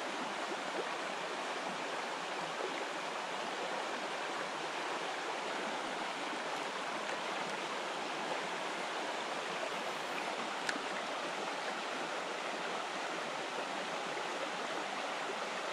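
Steady rush of a flowing river's current.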